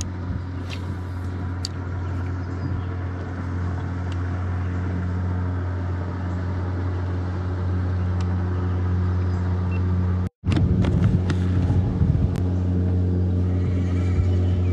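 Boat motor running with a steady low hum, with a brief cut about ten seconds in after which it is slightly louder.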